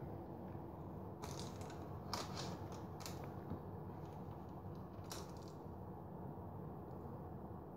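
Faint crackles and light clicks from baked sesame-crusted simit being pushed about by hand on a paper-lined metal baking tray. There are a few separate sounds a second or so apart over a low steady hum.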